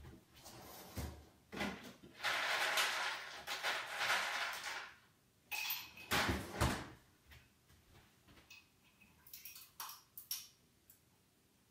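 Household noises in the background: a door or cupboard opening and closing, a few seconds of rushing, clattering noise, then a few light knocks.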